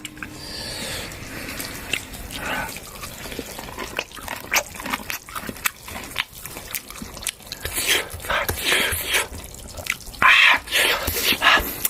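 Water splashing and dripping while greens are rinsed, with scattered clinks and knocks of cookware; the splashing grows louder near the end.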